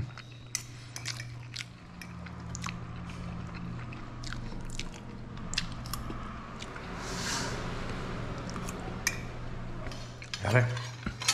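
Stainless fork and spoon clicking and scraping on a ceramic plate, with chewing between the clinks, over a steady low hum.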